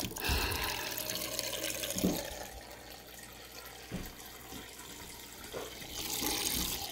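Water running, loudest in the first two seconds, quieter in the middle, and swelling again near the end.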